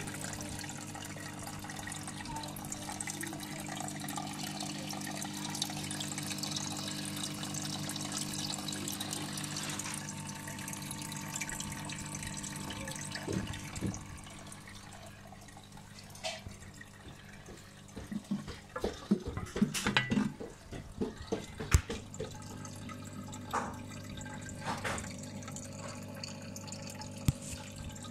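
Water trickling and splashing in a reef aquarium's sump, over a steady low hum. A bit past halfway comes a run of sharp knocks and clicks, the loudest sounds here.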